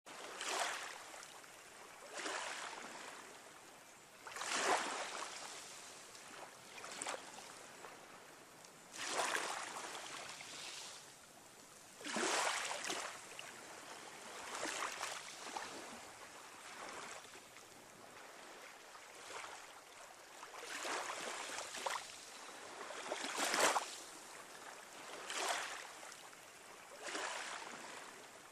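Water washing in repeated surges, each swell rising and falling away every two to three seconds.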